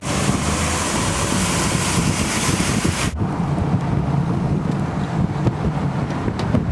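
Wind buffeting the microphone over a steady low rumble of a moving vehicle. The high hiss cuts off suddenly about three seconds in, leaving the rumble.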